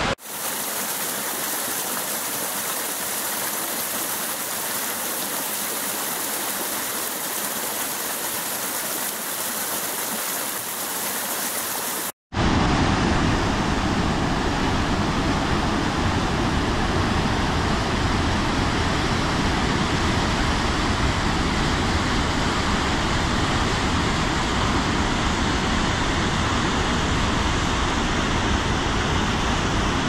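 Water rushing and splashing over rocks in a waterfall and stream: a thin, hissy rush for the first dozen seconds, then, after a brief break, a louder and fuller rush with more depth to it.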